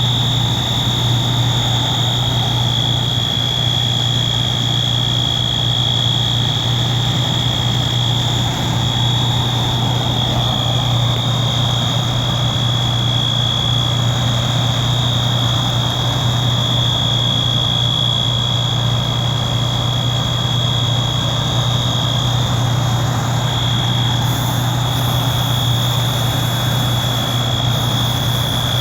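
Building fire alarm going off again after a reset, sounding one unbroken high-pitched tone. Under it is the steady low drone of an idling fire engine's diesel.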